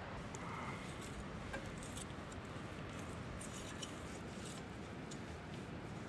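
Quiet, steady outdoor background noise with a few faint light clicks and ticks scattered through it.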